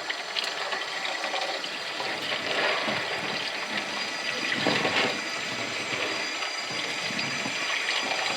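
Tap water running into a plastic bowl at a sink, splashing unevenly as greasy transmission pan bolts are rinsed clean.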